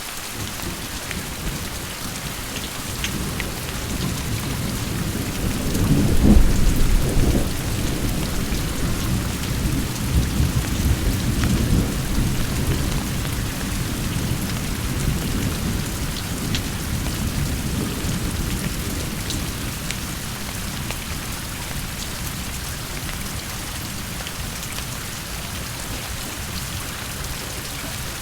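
Steady rain falling, with a long roll of thunder that builds about four seconds in, is loudest soon after, and rumbles away slowly.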